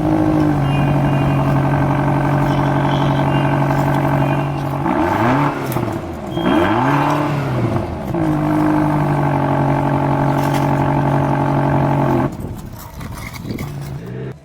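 Vehicle engine sound running at a steady pitch, revving up and down twice about midway, then cutting off suddenly near the end.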